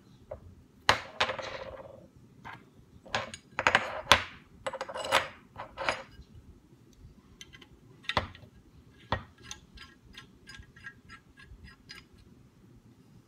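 Clinks, knocks and scrapes of metal bow parts and tools being handled, with several sharp knocks in the first half, then a run of light ticks about three a second near the end.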